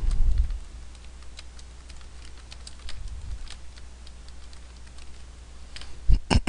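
Typing on a computer keyboard: a run of irregular keystroke clicks over a low, steady hum.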